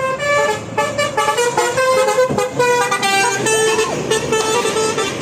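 Telolet multi-tone bus horn playing a quick melody, one trumpet-like note after another with hardly a break.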